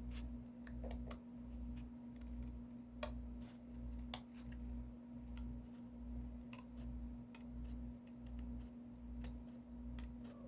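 Faint scattered clicks and snips of scissors and cardboard being handled during crafting, over a steady low hum that throbs a little over once a second.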